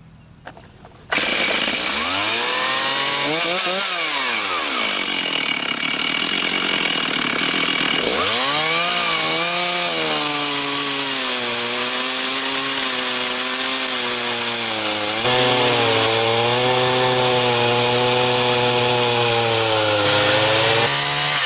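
Two-stroke chainsaw on a mini chainsaw mill, cutting lengthwise through a walnut log. It comes in suddenly about a second in, revs up and drops back around the third and fourth seconds, dips again near the eighth, then runs under load with its pitch wavering as it cuts.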